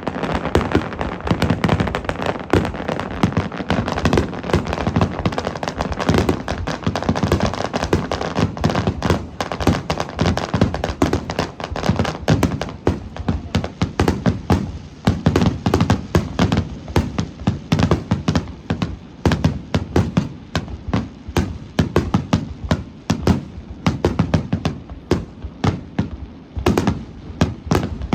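Aerial fireworks display: a dense barrage of shell bursts and crackling bangs in quick succession, thinning to more separate bangs near the end.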